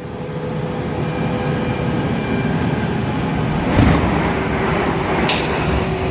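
Running noise heard inside the passenger car of a JR 373 series electric train: a steady rumble with a faint whine, and one louder knock a little under four seconds in.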